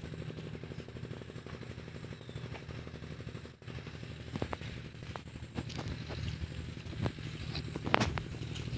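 Chinese diesel engine running steadily at a fast, even beat, with a few sharp clicks and knocks over it in the second half.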